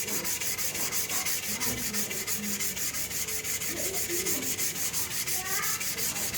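Hand sanding: abrasive rubbed back and forth in quick, even strokes, about seven a second, with a steady hiss.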